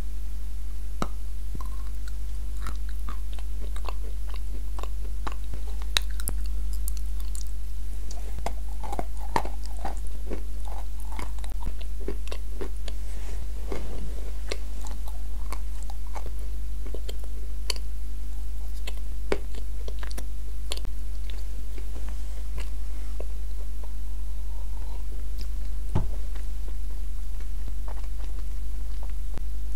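Close-miked biting and crunching of small, hard white balls of edible clay, with scattered sharp crunches and chewing between them. A steady low electrical hum runs underneath.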